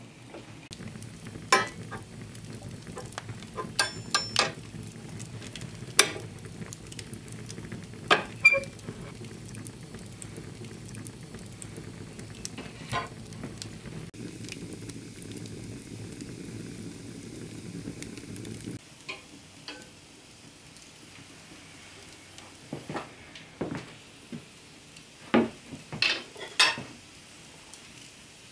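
A metal pot of greens hanging over an open hearth fire, with a steady low crackle and simmer and occasional clanks and rings of metal. These stop suddenly about two-thirds of the way in, and a few quieter knocks and clinks of kitchen utensils against pots and dishes follow.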